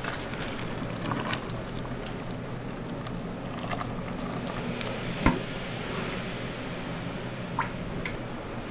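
Snack-factory machinery running with a steady noise, scattered small clicks and clanks, and one sharp knock a little past five seconds in.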